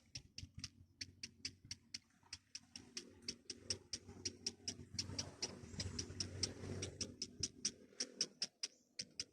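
Nestling birds peeping: a rapid, even string of short, high-pitched calls, about four to five a second, over low rustling.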